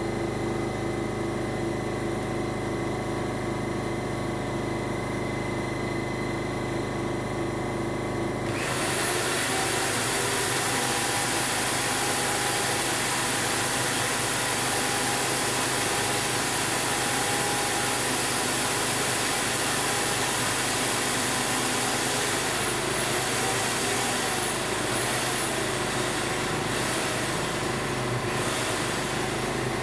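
Steady machine hum, then about eight seconds in the plasma arc of an Eastwood Elite 60 plasma cutter strikes and cuts Hardox 450 steel plate with a loud, steady hiss that holds to the end, its tone wavering in the last few seconds.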